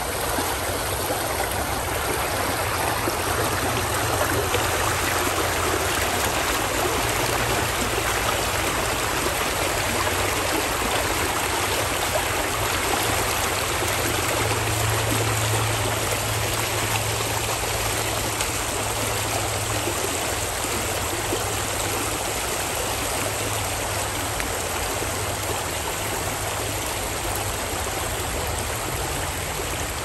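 Shallow creek rushing and rippling over gravel and pebbles, a steady, unbroken flow.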